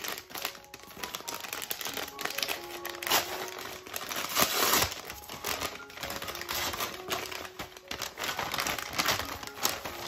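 Brown paper bag crinkling and rustling in the hands as it is handled and opened, in irregular loud crackles, loudest about halfway through. Soft piano music plays underneath.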